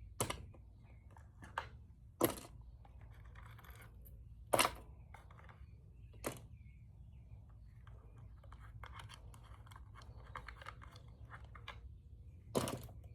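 Fishing lures being taken out of a box and set down: irregular sharp clicks and knocks of hard objects, the loudest a little after two and four seconds in, with soft rustling and rattling between them.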